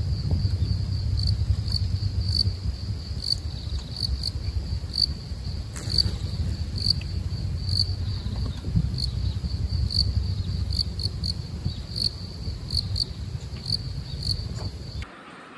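Insects trilling steadily in grass, a high-pitched buzz with faint regular pulses, over a steady low rumble. Both cut off abruptly near the end.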